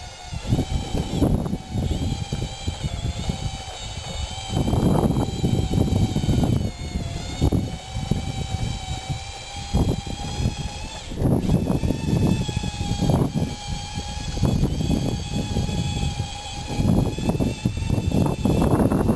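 Radio-controlled scale bulldozer running its drive motors and gearboxes: a steady whine that dips and shifts in pitch as it moves, over irregular low rumbling.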